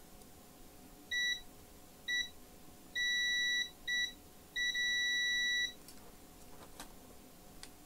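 Digital multimeter in continuity (beep) mode giving a steady high-pitched beep in five broken stretches of uneven length, two short, one longer, one short and a last one of about a second. The beep signals continuity between the two probed points on a laptop motherboard.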